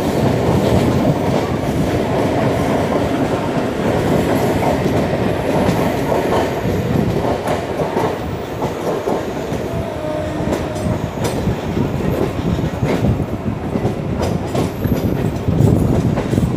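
Mumbai suburban local (EMU) train running at speed, heard from the open doorway of a moving coach: a steady loud rumble of wheels on rails, with sharp clicks over rail joints in the second half.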